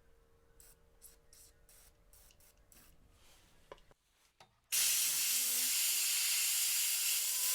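Loud, steady hiss of a pressurised jet, starting about five seconds in and lasting over three seconds, with a short rising whine beneath it. Before it, a faint steady hum with light ticks.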